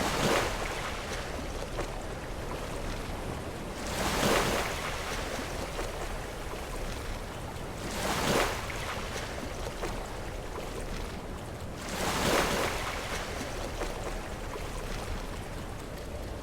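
Sea waves breaking against rocks, a surge of surf about every four seconds over a steady wash of water.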